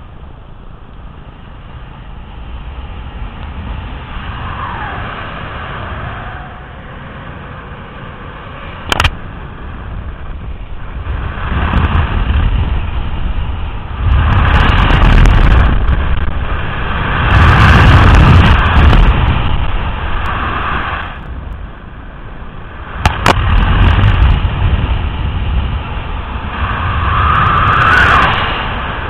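Wind rushing and buffeting over the camera's microphone during a fast speed-flying descent, swelling and fading several times as airspeed and heading change. Two sharp clicks stand out along the way.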